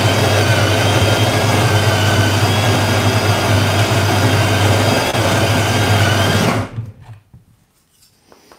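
Built-in conical burr grinder of a De'Longhi La Specialista Arte espresso machine grinding beans into the portafilter: a steady motor whine and hum that stops about seven seconds in, followed by a few faint clicks.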